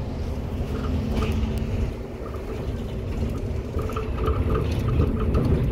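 Interior noise of a historic city bus on the move: a steady low engine and road rumble, with small rattles and clicks from the cabin fittings.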